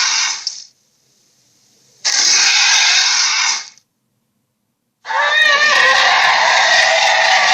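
Acrocanthosaurus roar sound effects: three loud, raspy roars separated by silent gaps. The first cuts off within the first second, the second lasts about a second and a half, and the third begins about five seconds in with a wobbling pitch at its start.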